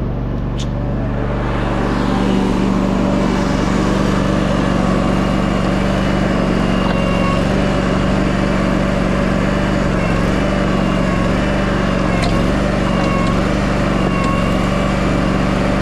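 An engine running steadily, growing louder over the first two seconds, then holding at an even pitch with a faint wavering whine above it.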